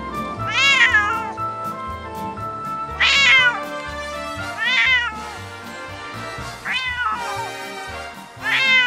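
A wild cat giving loud, repeated screaming calls, about five of them roughly two seconds apart, each rising then falling in pitch, over background music.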